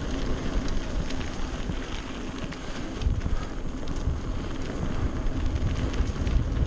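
Wind buffeting a GoPro Hero Session's microphone over the uneven rumble of a mountain bike riding a rough trail, with a few small clicks and rattles.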